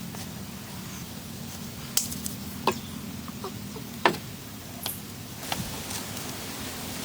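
About five sharp clicks and knocks at irregular intervals over a steady low hum.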